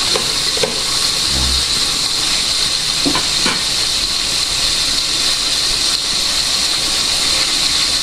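Diced onion and tomato sizzling steadily as they sauté in an oiled pan, with a lidded pot of chicken boiling alongside. A spatula scrapes and stirs the pan a few times in the first few seconds.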